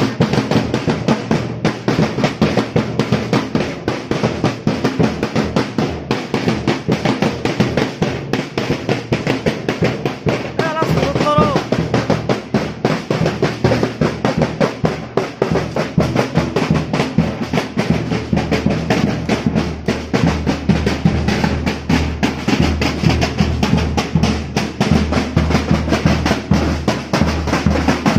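Drums beaten in a fast, continuous rhythm with many strokes a second. A brief wavering high tone cuts in about ten seconds in.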